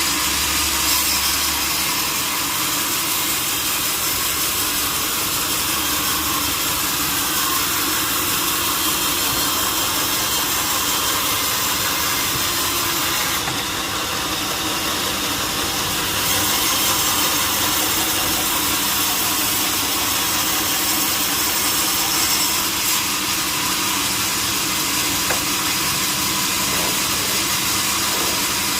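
Sawmill saw cutting steadily through a large log, a continuous even sawing noise.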